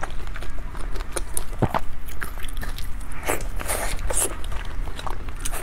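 Close-up eating sounds of a soft purple bun being torn and bitten: wet chewing and small mouth clicks throughout, with a couple of brief rustles from plastic food gloves about three to four seconds in.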